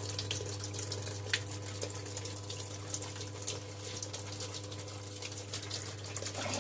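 Small electric booster pump running with a steady hum, pulling water from a bucket and pushing it into a washing machine's inlet valve, with water splashing and trickling throughout. The pump is fitted to raise a weak inlet water flow.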